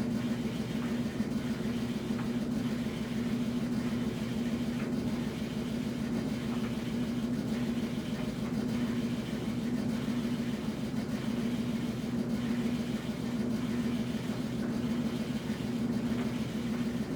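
Washing machine running: a steady motor hum with a faint regular pulse a little more than once a second.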